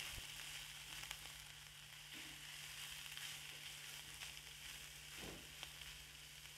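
Shredded chicken and spice paste sizzling faintly in hot oil in a pan as it is stirred, with a few light clicks.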